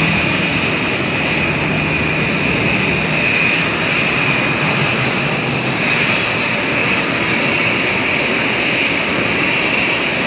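Airbus A320 jet engines running during pushback: a steady high whine over a broad rush of noise. A low engine hum underneath fades out within the first few seconds.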